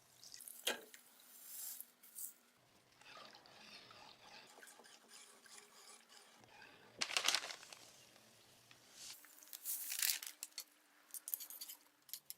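Hand work on the pistol: irregular bursts of scrubbing and rustling with a few sharp clicks, the loudest about seven seconds in and again around ten seconds in.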